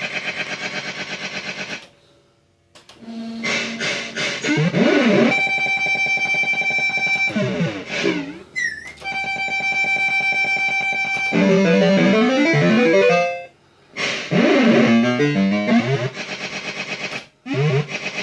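MPS2 fruit machine's electronic sound playing a run of beeping tunes and rapid rising and falling note runs, with two long held buzzy tones, and cutting out briefly twice. The sound is faulty: it is not coming out right.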